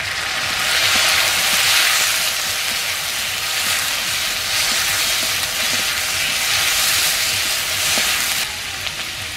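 Wet ginger and green chilli paste sizzling in hot mustard oil with fried potatoes in an aluminium kadai, stirred with a metal spatula. The sizzle is loudest just after the paste goes in and eases a little near the end.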